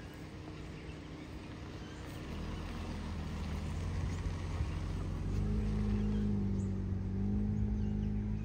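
Car driving slowly, its engine and road noise a low steady hum that grows louder from about two seconds in.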